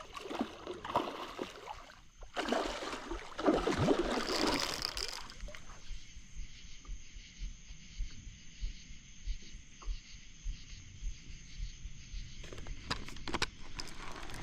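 Water splashing and sloshing beside a kayak as a hooked blue catfish thrashes at the surface, loudest in the first five seconds, then quieter lapping with a few sharp knocks near the end.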